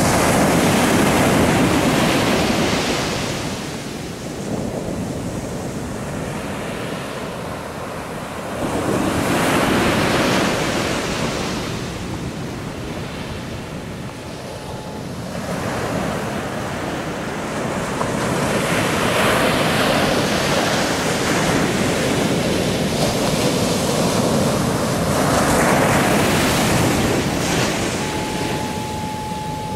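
Ocean surf breaking on a sandy beach, the noise swelling and fading four times as successive waves break and wash up.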